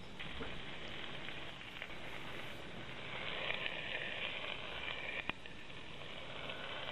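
Chicken leg quarters sizzling and crackling as they brown in hot fat in a cast iron Dutch oven. A single sharp click comes about five seconds in, while tongs turn a piece.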